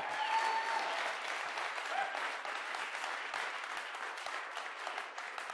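Large audience applauding: dense clapping that slowly dies down.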